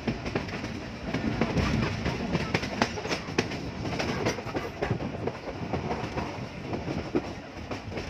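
Passenger train coach running along the track: a steady rumble with irregular sharp clicks and knocks from the wheels on the rails.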